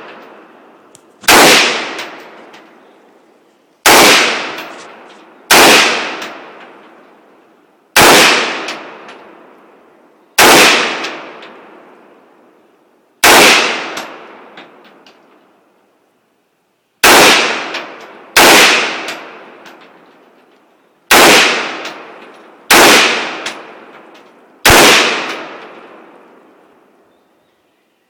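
AR-15 rifle fired in slow single shots, eleven in all, a few seconds apart. Each shot trails off in a long echo.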